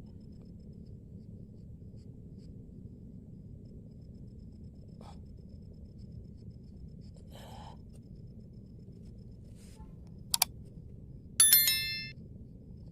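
A sharp click, then about a second later a bright bell-like ding that rings out and fades within half a second, over a steady low background hum.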